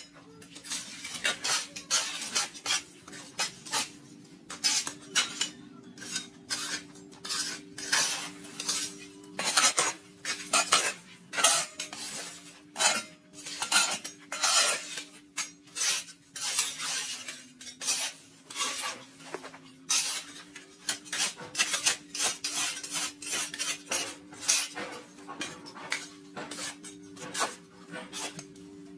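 Irregular clattering and scraping of hard objects, many strokes in quick uneven succession, over an engine running steadily underneath whose pitch sags for a few seconds a little past the middle.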